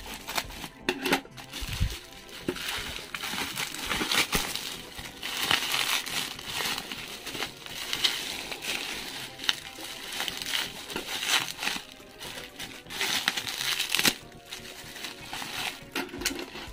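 Bubble wrap crinkling and rustling as it is cut open and pulled apart by hand, with many sharp little crackles throughout.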